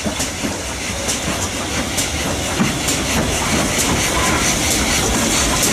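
GWR 2800 class 2-8-0 steam locomotive 2857 running slowly into a station with its train: a steady rumble and hiss, with a run of sharp clicks from the wheels over the rail joints, getting slightly louder as it comes closer.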